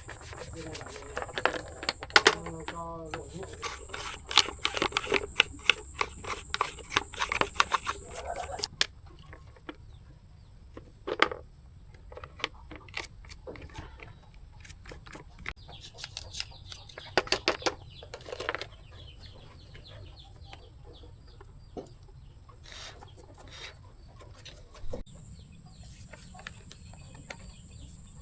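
Rapid sharp clicks and taps for about the first nine seconds, then scattered clicks and knocks, from hands working on the electric kettle's parts during repair. A chicken clucks briefly about two to three seconds in.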